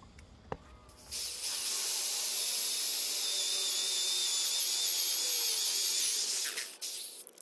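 Electric drill boring a hole through an old white mahogany fence post. It starts about a second in, runs steadily with a high whine, and stops near the end.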